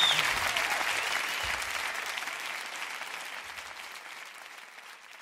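Audience applauding, fading away steadily, with a short rising-and-falling whistle right at the start.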